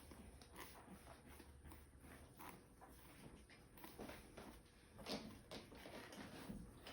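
Near silence with faint rustling and a few soft clicks while a puppy is being handled, one slightly louder click about five seconds in.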